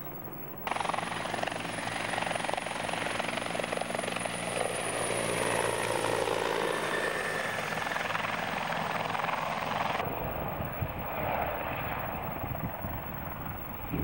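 CH-146 Griffon helicopter running close by with rotors turning: loud turbine and rotor noise with a steady high-pitched whine. It cuts in abruptly about a second in and cuts off abruptly near the ten-second mark, giving way to the quieter, lower sound of an AH-64 Apache helicopter flying.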